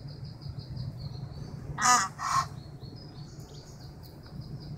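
Egyptian goose goslings peeping in a quick, continuous high-pitched stream. About two seconds in, an adult Egyptian goose gives a loud, harsh two-part call.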